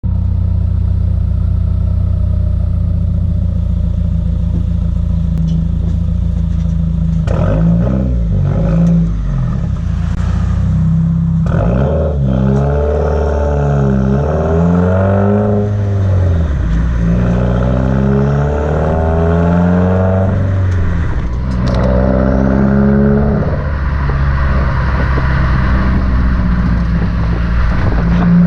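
2019 Subaru WRX's turbocharged 2.0-litre flat-four running through a Remark muffler-delete exhaust. It idles steadily for about seven seconds, then the revs rise and fall four or five times, with a few sharp crackles as the revs drop.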